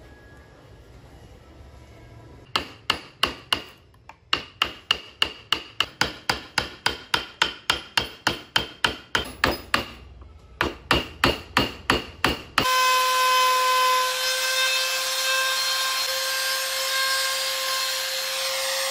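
A wooden mallet strikes repeatedly at a steady pace of about three blows a second, with two short pauses. About two-thirds of the way in, an electric trim router starts abruptly and runs with a loud, steady high whine.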